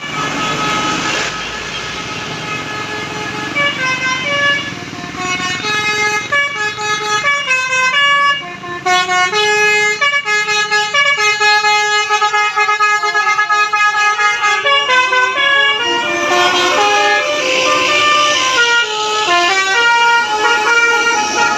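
Bus 'telolet basuri' musical air horn playing a tune, clear notes stepping up and down one after another, with a short break partway through.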